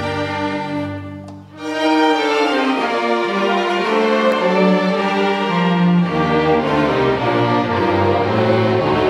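Orchestral bowed strings (violins, violas and cellos) playing slow, held chords. About a second in the sound thins to a brief hush, then the strings come back in fuller and sustain.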